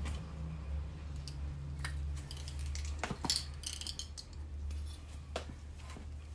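Scattered light clicks and clinks of hands-on work on small parts, with a small cluster about three seconds in, over a steady low hum.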